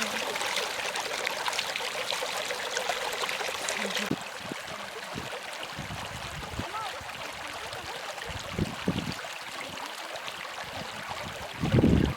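Steady running water, like a small stream, that becomes quieter about four seconds in, with a few low thumps, the loudest near the end.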